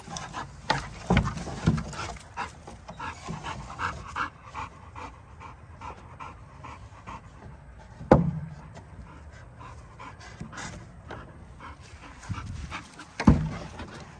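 American bully dog panting hard close by, in quick rhythmic breaths, with several loud thumps, the strongest about 8 and 13 seconds in.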